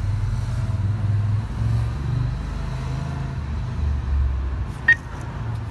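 Low rumble of street traffic, with a short click and beep about five seconds in as an ATM button is pressed.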